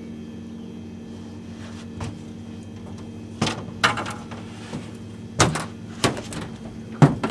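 Knocks and thumps on a boat deck from someone moving about on it: a faint one about two seconds in, then a run of sharp knocks from about halfway, the loudest near the end, over a steady low hum.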